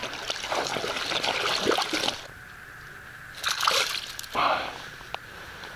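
A hooked fish thrashing and splashing at the water's surface as it is drawn up to the raft, then two short, loud splashes as it is swung out of the water.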